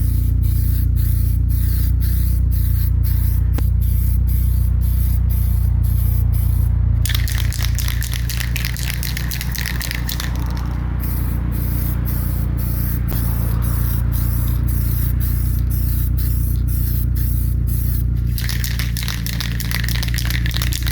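Paint being sprayed in light coats onto a plastic rear spoiler: two long hissing passes, one about a third of the way in and another near the end, over a steady low hum.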